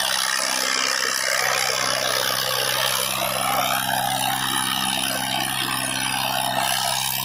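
Tractor diesel engine running steadily under load as it drags two disc harrows through the soil, a constant low hum with a broad hiss over it.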